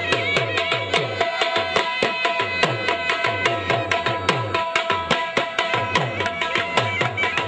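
Dhol drum beaten in a fast, even dance rhythm, each bass stroke dropping in pitch, with a steady high-pitched melody instrument playing over it.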